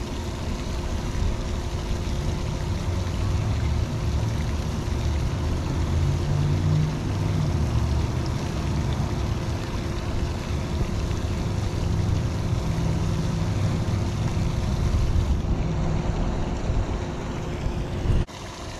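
Wind buffeting an action camera's microphone: an uneven low rumble over a steady hum, cut off abruptly near the end.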